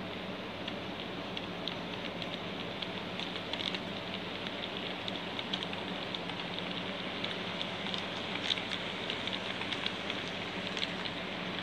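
HO-scale model train running past on its track: a steady whir of the locomotive and rolling wheels with a constant pattering of light clicks. The clicks are loudest a little past the middle, as the wagons go by close.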